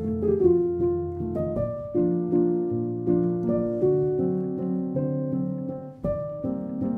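Background instrumental music: a slow melody of struck notes over low held notes, dipping briefly about six seconds in.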